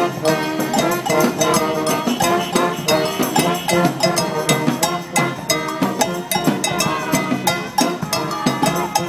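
Live brass band playing: saxophones, trombone and trumpets carrying a tune over snare drum, bass drum and cymbal beating a steady rhythm.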